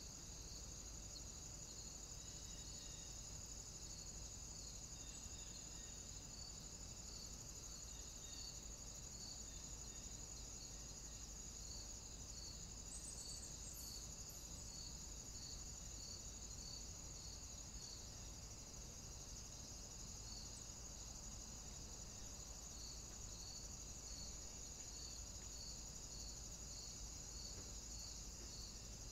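Faint insect chorus: a steady high trill with a regular chirp repeating about one and a half times a second.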